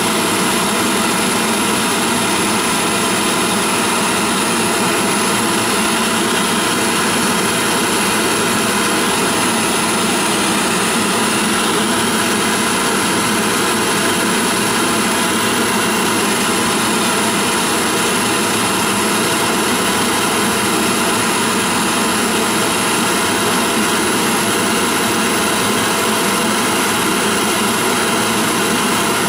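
Gas burner running steadily, heating a copper model boiler to silver-soldering temperature.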